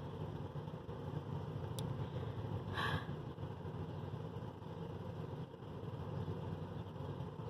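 Wind buffeting a phone microphone, a steady low rumble, with one brief higher sound about three seconds in.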